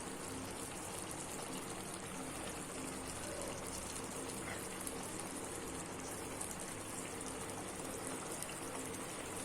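Chicken masala gravy simmering in the pan: a steady bubbling and sizzling.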